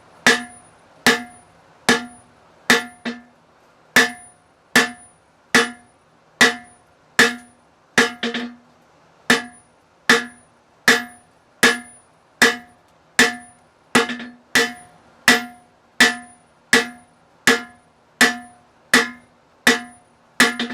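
Blacksmith's hand hammer striking hot steel bar stock on an anvil in a steady rhythm, a little more than one blow a second, each blow ringing briefly; an occasional light extra tap falls between blows. The blacksmith is drawing out, or thinning, the bar.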